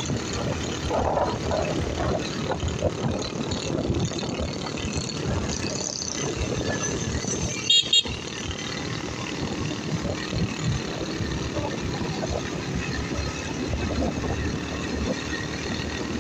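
Motorcycle riding through town traffic: engine running with steady wind and road noise on the microphone. About halfway through, a horn beeps twice quickly, the loudest sound.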